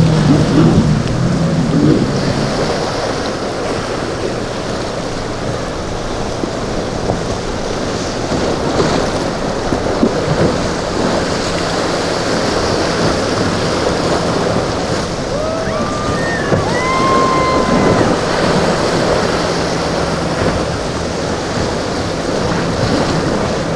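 Waves breaking and wind buffeting the microphone, under a steady low drone of boat engines. A few short high whistles come in about two-thirds of the way through.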